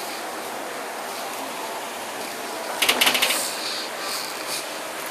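Steady rain hiss, with a brief rattling clatter of clicks about three seconds in, followed by a few fainter high blips.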